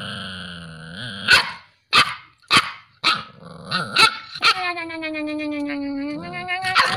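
A puppy growling low, then a run of sharp barks about every half second, then a long drawn-out howl that slowly falls in pitch, ending with another bark.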